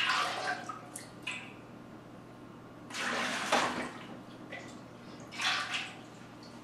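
Water being scooped out of a stainless-steel stockpot with a small cup, splashing and sloshing in three short bursts, one near the start, one about three seconds in and one near the end.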